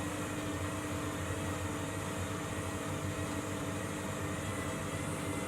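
Candy Grande Vita 7 kg washing machine running in its final spin stage: a steady motor hum with a few held tones over an even whirr, a little out of balance.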